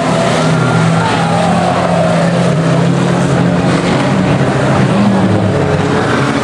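Banger racing cars' engines running at speed around the oval, a loud steady drone from several cars, with one engine note falling in pitch about a second in as a car passes.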